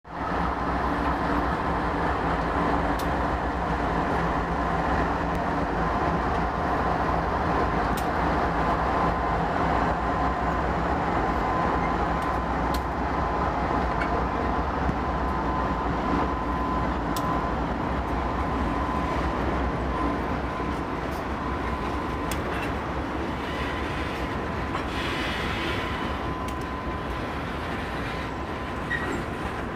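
Lashup of BNSF diesel freight locomotives passing close by, a continuous rumble with a steady high whine and a few sharp clicks from the wheels on the rails. Near the end the last locomotive gives way to tank cars rolling by.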